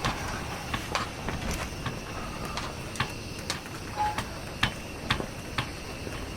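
Irregular light clicks and knocks, about one or two a second, over a steady background hiss, with a brief short tone about four seconds in.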